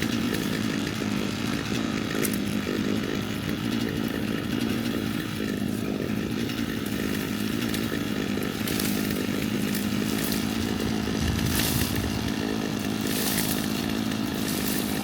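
Chainsaw running steadily while brush and vines are cleared, with a few short bursts of hiss in the second half.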